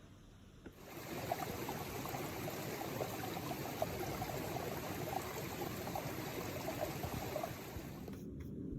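Stream water running, a steady rush with many small splashes and gurgles, starting abruptly about a second in and cutting off suddenly near the end.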